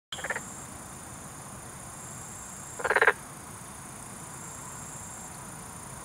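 Black-spotted pond frog (Pelophylax nigromaculatus) calling twice, each call a short rattling trill: a brief one right at the start and a louder one about three seconds in. A steady high-pitched background drone runs beneath.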